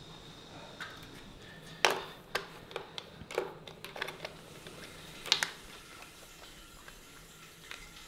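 Small hinged plastic case being handled on a hard countertop: a string of sharp clicks and taps, the loudest about two seconds in and another about five seconds in, with lighter ticks between.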